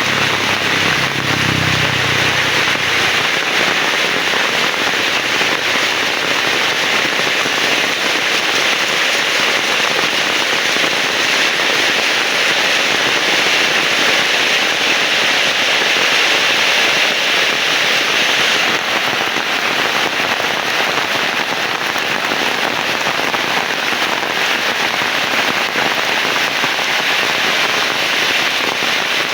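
Heavy rain pouring steadily with a dense crackling patter, and a brief low rumble near the start.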